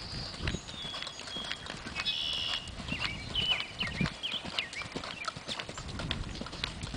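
Buckskin crossbred horse loping under a rider on a dirt arena: repeated hoofbeats on the soft ground.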